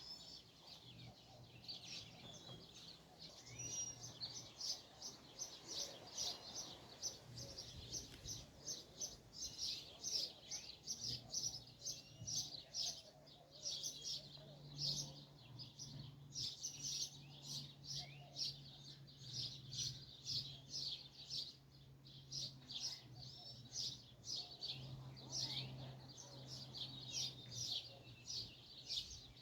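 Many small birds chirping and twittering in a dense chorus, several short high calls a second, over a faint steady low hum.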